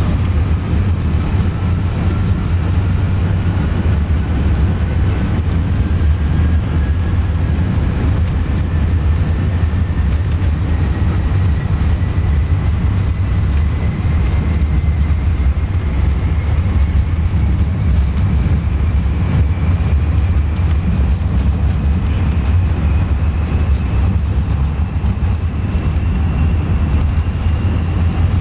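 Airbus A380 with Rolls-Royce Trent 900 engines heard from inside the cabin on the takeoff roll: a loud, steady low rumble with a faint whine that rises slowly in pitch throughout.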